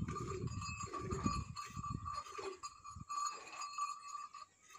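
A cow being milked by hand into a small steel pot, the milk squirting in a quick, rhythmic run of strokes that fades out about three seconds in. A steady high-pitched tone runs in the background.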